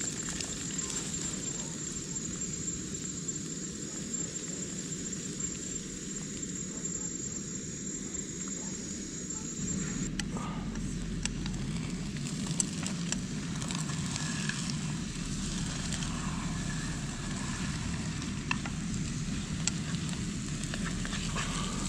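Beaten eggs sizzling in oil in a small wok over a portable gas-canister stove, with the burner's steady hiss underneath and occasional clicks and scrapes of the utensil stirring the eggs in the pan.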